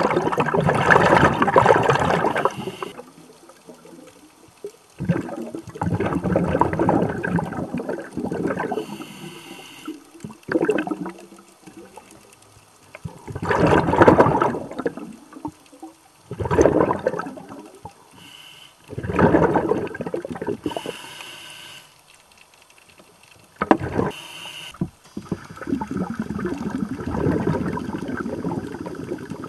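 Scuba regulator breathing heard underwater: loud rushes of exhaled bubbles every few seconds, with a thinner hiss of inhalation through the regulator between them.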